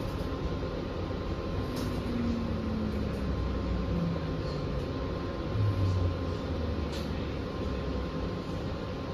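Inside a New Flyer XE40 diesel-electric hybrid bus on the move: steady low rumble of the drive and road noise with a faint steady whine, a tone that falls in pitch from about two to four seconds in, and a louder low rumble around six seconds in.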